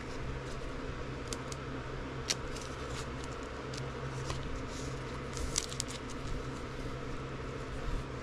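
Trading cards and their plastic sleeves being handled: scattered light clicks and rustles, a few sharper ticks, over a steady low hum.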